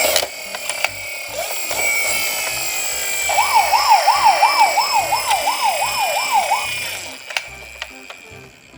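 Toy emergency vehicles' electronic sirens wailing, several at once. Midway one sounds a fast up-and-down yelp, about three cycles a second, for some three seconds. There are light clicks throughout, and the sirens fade near the end.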